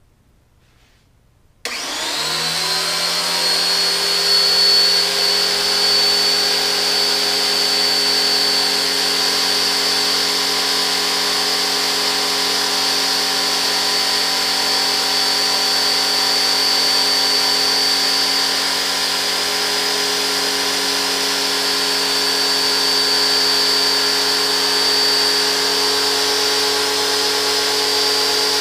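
Cheap electric pressure washer switched on: its motor and pump start suddenly about two seconds in, whine up to speed and then run steadily, pumping water to pressurize the hydroforming press.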